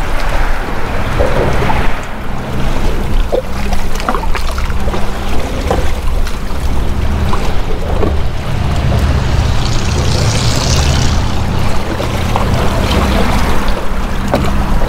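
Choppy water slapping and splashing against a kayak hull under way, with irregular small splashes over a steady low wind rumble on the microphone.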